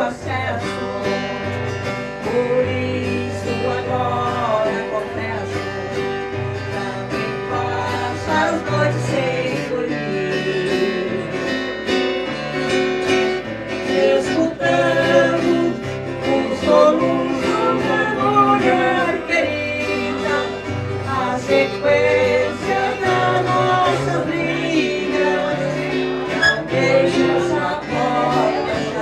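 Live music led by a viola caipira, the Brazilian ten-string folk guitar, played briskly with plucked and strummed notes over a low bass line that changes every second or two, with some singing.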